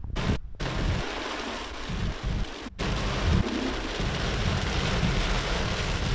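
Heavy rain beating on a moving car, heard from inside the cabin as a steady hiss over a low, uneven rumble of the car on the wet road. The sound cuts out briefly twice, about half a second in and near the three-second mark.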